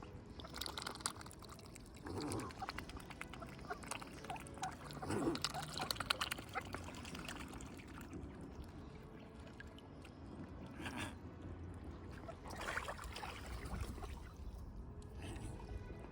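A swan dabbling its bill in shallow water, with small splashes and trickles now and then.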